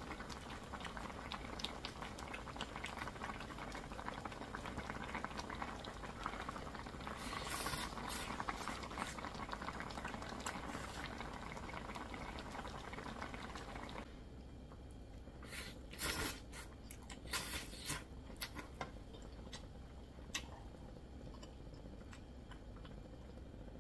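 Ramyeon broth bubbling and crackling in a wok on a portable gas burner. About two-thirds of the way in the bubbling quietens as the flame is turned down, and a few short, sharp sounds follow.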